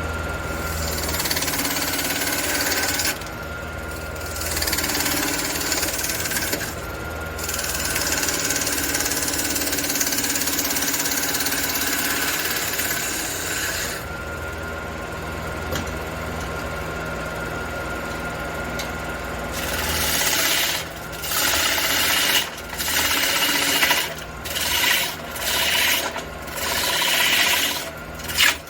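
Wood lathe running with a steady hum while the spinning red cedar piece is worked against, making a continuous rubbing, rasping sound. It drops away briefly a few times, and in the last several seconds the rubbing comes in short strokes about a second apart.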